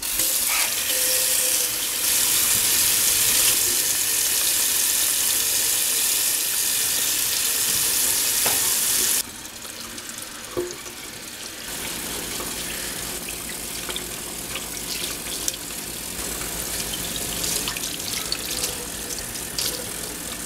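Kitchen tap running into a stainless steel sink while hands rinse the soil off a basil plant's root ball under the stream. The water is loud for the first nine seconds or so, then drops suddenly to a quieter splashing with a few faint clicks.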